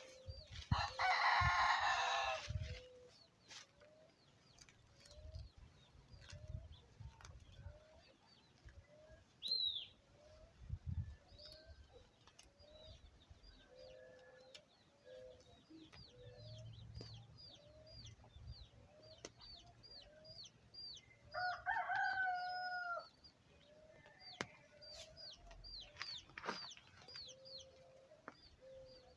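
A rooster crows loudly about a second in, and chickens cluck steadily through the rest, with another loud call a little past two-thirds of the way. Small birds chirp repeatedly in the background.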